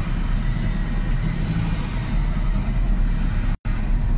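Steady low engine rumble and road noise inside a car's cabin as it drives. The sound cuts out for an instant about three and a half seconds in.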